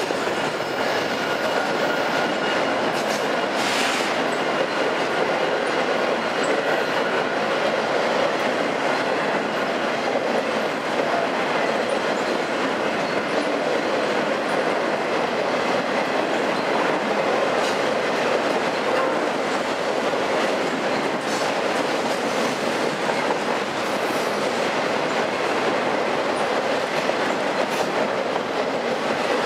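Freight train of autorack cars rolling past close by on a curve: a steady rumble and clatter of steel wheels on rail, with a faint thin wheel squeal in the first few seconds.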